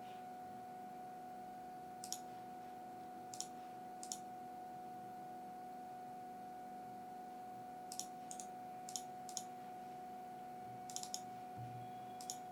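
Faint computer mouse clicks, about ten of them scattered irregularly, a few in quick pairs like double-clicks, as software is opened and navigated. A steady faint hum runs underneath.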